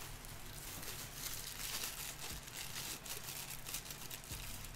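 Clear plastic bag wrapping crinkling and rustling on and off as it is handled and pulled open by hand to free a statue part.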